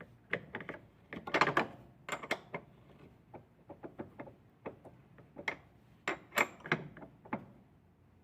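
Irregular metallic clicks and clanks of a hand tool on the washing machine's new clutch and pulley as the pulley is tightened down.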